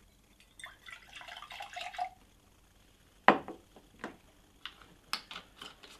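Pineapple juice pouring from a carton into a metal cocktail shaker cup for about a second and a half. About three seconds in comes a sharp knock, the loudest sound, followed by a few lighter clicks and taps.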